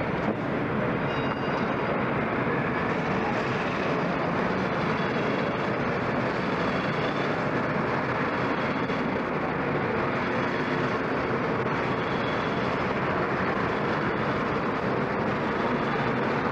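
Several racing kart engines running together on the track, a steady, dense engine noise with faint high engine whines on top.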